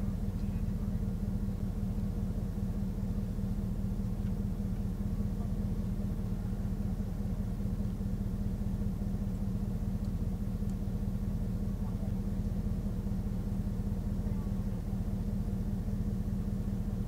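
A vehicle engine idling steadily: a low, even hum that does not change.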